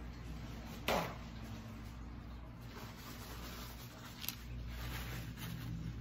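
Steady low hum with a brief sharp sound about a second in that drops quickly in pitch, then a light click near the four-second mark as the steel hand-mixer beaters are picked up off the pad, followed by soft rag handling.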